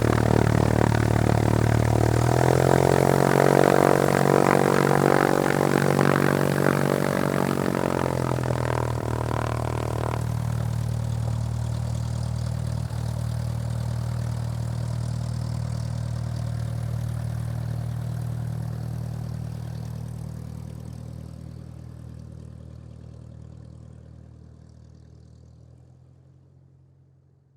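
Propeller aircraft engine running, with a steady low engine note. Its tone steps up about two seconds in, eases back to a steadier run around ten seconds in, then fades out over the last ten seconds.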